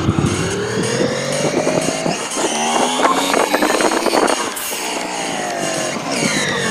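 Motorcycle engine running while riding, its pitch rising over the first two seconds and falling again about six seconds in.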